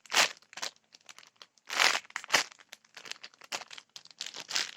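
Crinkling and rustling in short, irregular bursts as a squishy toy is handled.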